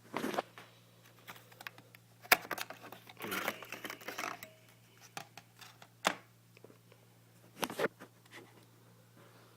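Hands handling a laptop and small objects: scattered clicks and knocks, with one sharp click about two seconds in, and a stretch of scraping and rustling around three to four seconds in.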